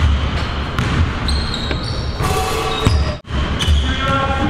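A basketball dribbled and bouncing on a hardwood gym floor during a game, with the short squeaks of sneakers on the court. It echoes in a large gym hall.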